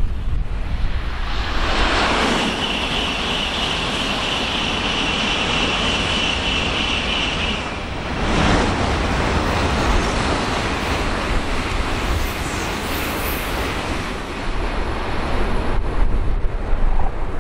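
Shinkansen bullet train passing at speed: a building rush of air and rail noise with a steady high whine for about five seconds, a louder swell around eight seconds in as it goes by, then easing off. Wind rumbles on the microphone throughout.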